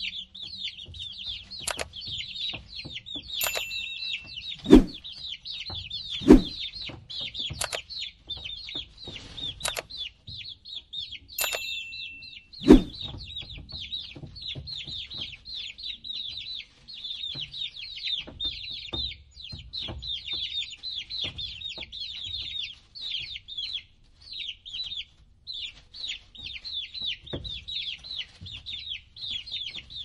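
Coot chicks peeping nonstop in high, rapid chirps. A few sharp knocks cut through, the loudest about 5, 6 and 13 seconds in.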